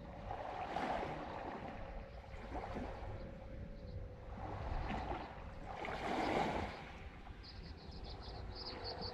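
Small lake waves washing in on the shore, several swells that rise and fall about every one to two seconds, the biggest about six seconds in.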